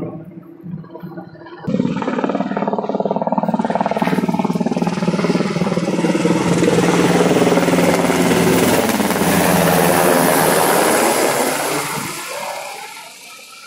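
Sikorsky S-70i Black Hawk helicopter flying low overhead: rotor and turbine noise comes in suddenly about two seconds in. It grows loudest as the helicopter passes overhead, then fades over the last couple of seconds as it flies away.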